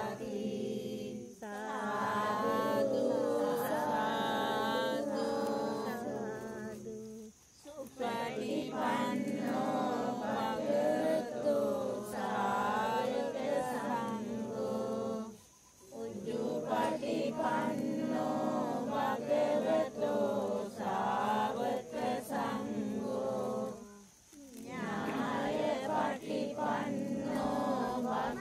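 Buddhist monks chanting together in unison, in long phrases broken by brief pauses for breath about every eight seconds.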